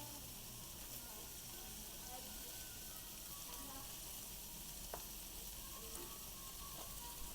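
Pork belly sizzling on a large iron griddle heated by a wood fire: a steady, faint frying hiss with a few small pops.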